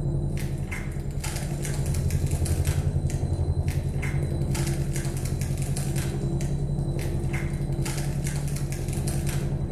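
Experimental electronic music: a low, rapidly pulsing drone of several held tones, crossed by irregular short noisy clicks.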